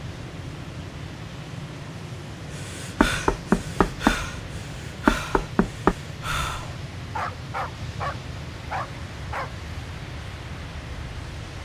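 Dog barking: two quick runs of sharp barks, then several shorter yelps that fall in pitch, over a steady low background rumble.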